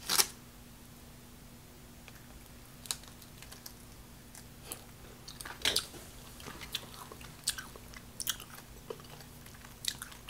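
Quiet, scattered mouth clicks and small crunches of someone chewing a sugar-coated candy.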